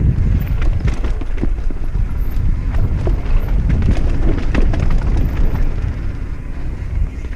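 Mountain bike riding down a rough trail, with wind rumbling on the GoPro's microphone. A rapid, uneven clatter of knocks from the bike and tyres over the bumps is thickest in the first five seconds, then eases.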